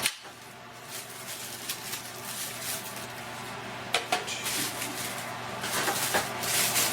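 Cordless phone handsets and their packaging being handled: faint rustling with light plastic knocks, and a sharp click at the start and again about four seconds in.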